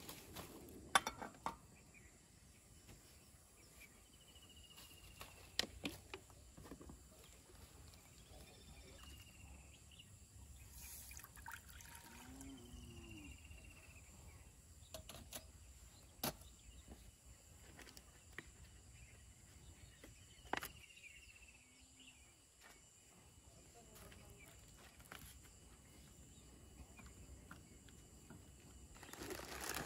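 Quiet outdoor ambience with a few faint, short bird calls that fall in pitch, and scattered light clicks and knocks, the sharpest about a second in.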